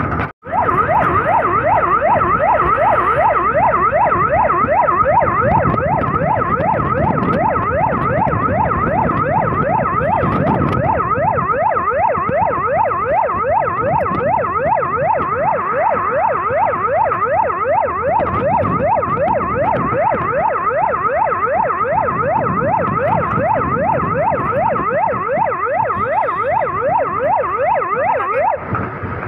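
Emergency vehicle's electronic siren sounding from its roof speaker in a fast yelp, the tone sweeping up and down several times a second, with the vehicle's engine and road noise underneath. The siren cuts off shortly before the end.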